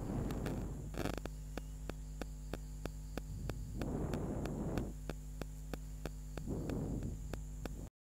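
Steady electrical mains hum with a regular faint ticking, broken three times by short scraping and rustling as granulated sugar is scraped with a spoon out of a glass bowl into a bowl of flour. The sound cuts off suddenly just before the end.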